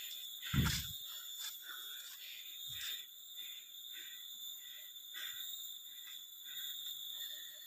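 Insects droning in steady high-pitched tones with a faint chirping pulse repeating about twice a second. A low thump comes about half a second in.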